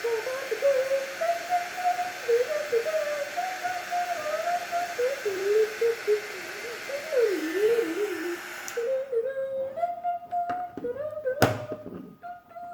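A hot-air blower runs with a steady hiss while a person whistles a wandering, low tune over it. The blower cuts off about nine seconds in, the whistling carries on briefly, and a single sharp click comes near the end.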